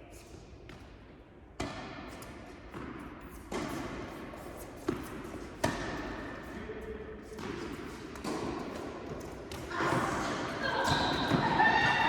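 Tennis balls being struck by rackets and bouncing on an indoor hard court during a rally: a series of sharp hits about a second apart, ringing briefly in the hall. Voices rise toward the end.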